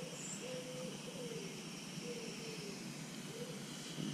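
A bird calling faintly in a run of short, low notes, some held level and some gliding, over a steady hiss.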